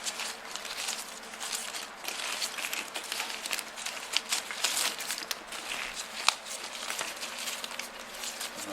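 Old car wiring harness being handled and pulled apart: plastic wire loom and tape crinkling and crackling continuously, with many small sharp clicks.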